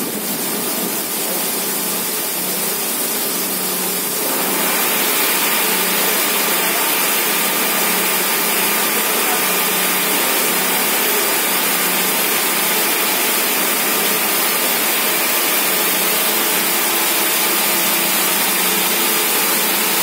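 Mayer & Cie S4 open-width circular knitting machine running: a steady mechanical whirr with a few faint steady tones, louder and brighter from about four seconds in.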